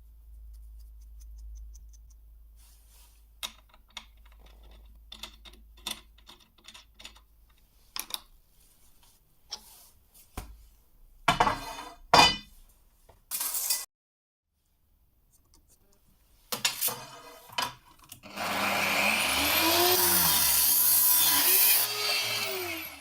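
Hand file rasping along a knife blank in a bevel-filing jig: a steady scraping for several seconds near the end. Before it come scattered clicks and knocks of the work being handled and set up.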